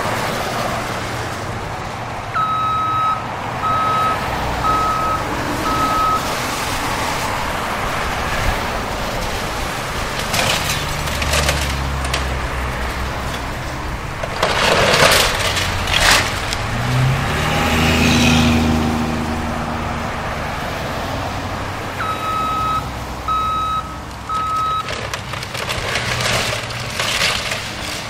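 Caterpillar wheeled excavator's diesel engine running and revving under load as it pulls apart a wood-frame house, with sharp cracks and crashes of breaking timber and falling debris. A backup alarm beeps in two short runs, one early and one near the end.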